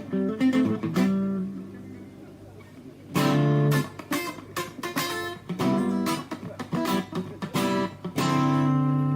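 FGN Stratocaster electric guitar played through a Fender Studio Valve SVH tube amp, strummed chords. Some chords are let ring and some are cut short. There is a quieter spell about two seconds in, and a long held chord near the end.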